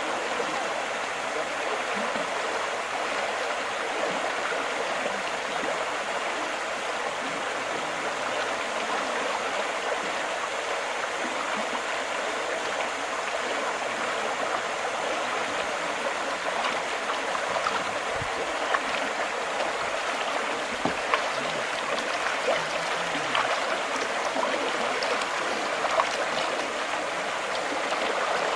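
Steady rush of flowing water, with a few faint clicks in the second half.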